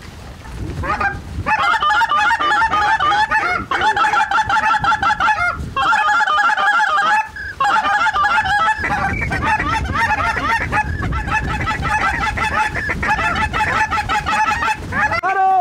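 Loud, rapid goose honking and clucking, kept up almost without a break, with a few short pauses early on and a single drawn-out honk near the end.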